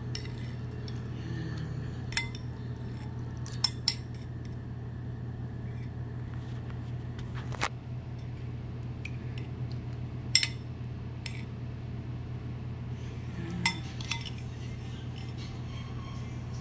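Metal spoons clinking against a glass soup bowl and a plastic rice container as someone eats: several sharp, separate clinks spaced irregularly, over a steady low hum.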